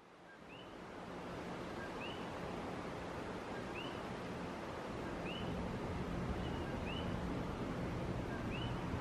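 A coqui frog calling its two-note "ko-kee" six times, about every second and a half, over a steady low hum and background noise that fades in during the first couple of seconds.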